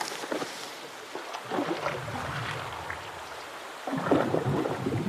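Water splashing in a shallow river: a fly-hooked trout thrashing at the surface and the angler wading through the current. The splashing gets busier about a second and a half in and louder about four seconds in.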